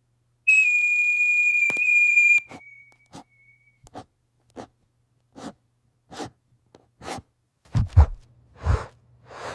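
A loud, steady, high-pitched whistle tone lasting about two seconds, which then fades. It is followed by a series of short soft sounds about one every 0.7 s, growing louder and deeper near the end.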